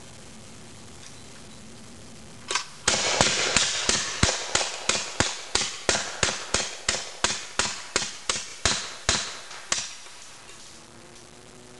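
Hand-cranked custom Gatling gun firing: a single shot, then a rapid, even string of about twenty shots at roughly three a second that stops about ten seconds in.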